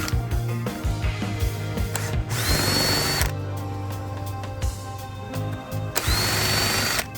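Power drill-driver run twice, about a second each, its whine rising and then holding, while backing screws out of the string trimmer's housing. Background music with a beat plays throughout.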